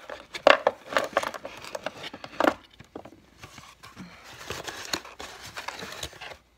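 Packing material rustling and crinkling, with irregular knocks and clicks, as locks are pulled out of a shipping box. It is loudest in the first two and a half seconds and quieter after that.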